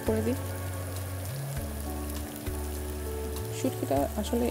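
Dried-fish curry in a thick spice paste sizzling steadily in a frying pan as it is sautéed down. Background music with held bass notes that change every second or two plays over it.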